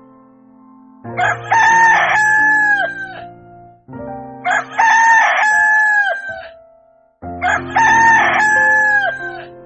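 Rooster crowing three times, the same crow repeated about every three seconds, each ending in a long held note that drops off, over steady background music.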